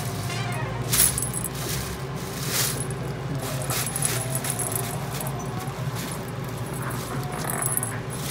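Thin plastic bag rustling and crinkling in short crackly bursts as a cat pushes into it, loudest about a second in, over a steady low hum.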